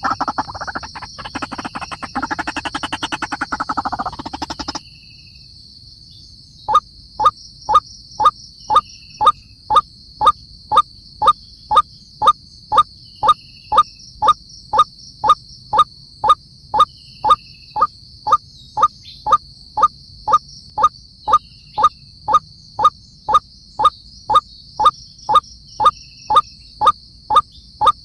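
White-breasted waterhen giving its monotonous repeated call, short rising notes at an even beat of about two a second, starting about seven seconds in over a steady high insect drone. Before that, a louder, denser stretch of sound stops abruptly about five seconds in.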